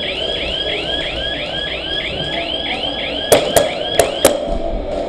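Electronic alarm sounding a repeating rising whoop, about three a second, which cuts off about four and a half seconds in. Four sharp cracks come near the end.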